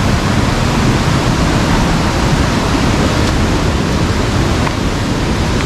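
Steady, loud rush of falling water from Meenmutty Waterfall, an even roar with no breaks.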